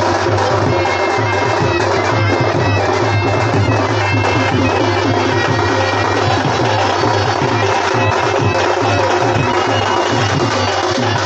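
Loud traditional folk music: a reedy wind instrument playing a melody over a steady low drone.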